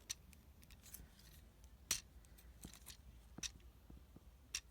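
Plastic clicks of a Transformers Deluxe Class figure's parts being moved and pressed into place: a handful of separate sharp clicks, the loudest about two seconds in.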